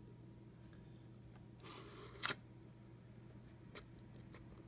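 Quiet handling of small plastic toys and packaging: a faint steady hum, a short scrape about two seconds in, and a small click near the end.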